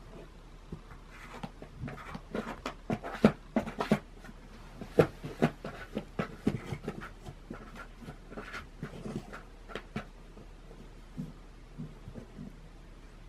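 Cats shifting and scratching in cardboard boxes: a run of short scrapes and taps on cardboard, busiest in the first half and thinning out toward the end.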